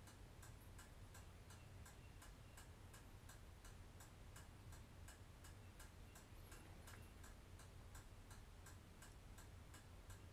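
Near silence with faint, even ticking about three times a second, like a mechanical clock, over a low steady hum of room tone.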